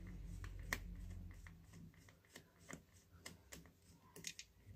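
Faint scattered clicks and taps of small parts being handled, over a low hum that stops about a second and a half in.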